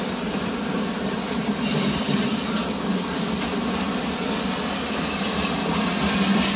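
Freight train rolling past, a steady rumble of steel wheels on the rails that slowly gets a little louder.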